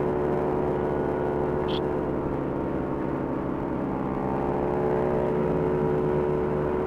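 Motor scooter engine running steadily at cruising speed, heard from on board with wind and road noise underneath. A short high chirp comes about two seconds in.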